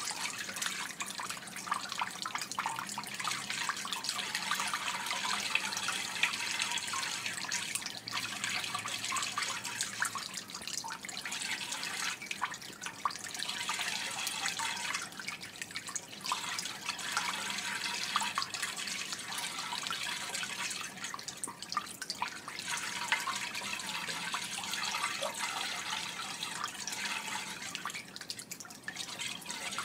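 Water trickling and splashing: a steady babble of many small splashes and droplets.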